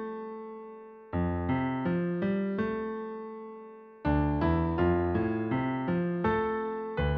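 Background piano music: a gentle melody of struck notes, with two phrases ending on held chords that fade out before the playing picks up again.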